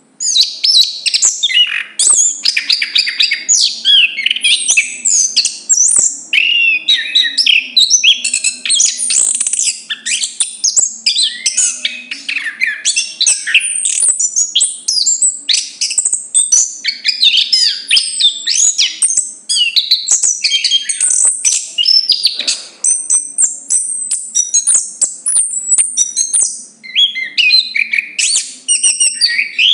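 Chestnut-capped thrush singing loudly and almost without pause: a fast, varied string of whistled notes, trills and up-and-down glides.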